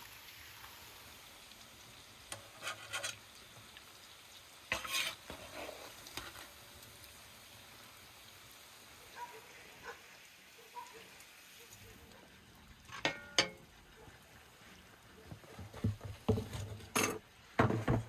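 Hot oil sizzling steadily in a large metal pan as chunks of beef liver fry and are scooped out with a metal skimmer. A few sharp clinks and scrapes of the metal utensil against the pan come twice early on, a pair about 13 seconds in, and several near the end.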